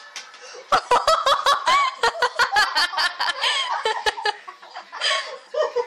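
Hearty human laughter in rapid rhythmic bursts, starting about a second in, breaking off briefly, then starting again near the end.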